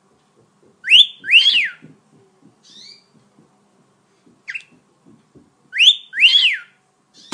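Cockatiel whistling a two-note phrase like a wolf whistle, a rising note then one that rises and falls, given twice about five seconds apart, with a short faint chirp or two in between.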